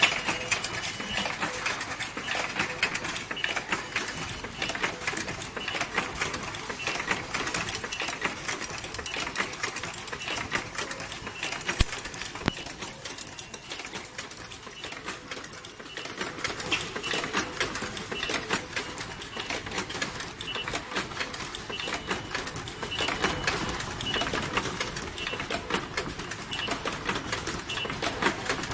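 Automatic transformer magnetic-core assembly machine running: a fast, continuous clatter of many small mechanical clicks from its moving parts. One sharper knock stands out about twelve seconds in.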